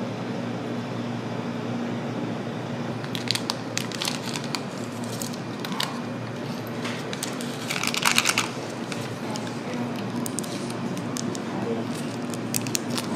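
A foil instant-noodle seasoning sachet being handled and torn open, crinkling with scattered sharp clicks and a louder tearing rustle about eight seconds in, over a steady low hum.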